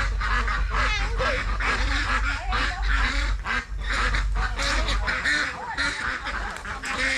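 A flock of domestic ducks quacking, many short calls overlapping without a break.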